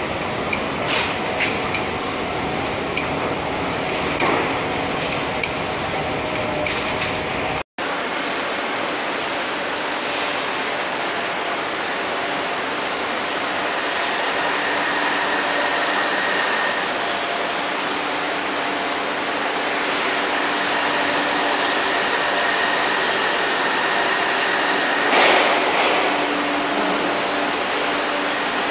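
Machinery of a UV coating line for wood blind slats running: a steady machine hum with scattered clicks and knocks. The sound breaks off about eight seconds in and resumes as a steadier hum with a thin whine that comes and goes.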